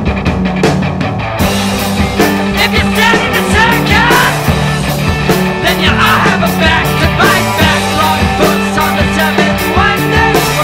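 Rock music soundtrack with a steady drum beat; the mix grows fuller, with cymbals coming in, about a second and a half in.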